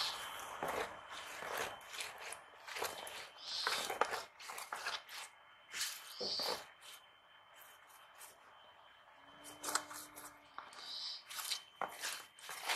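Small fish being spread and sorted by hand on a woven bamboo tray: irregular rustling, scraping and light clicks of fish and fingers on the weave.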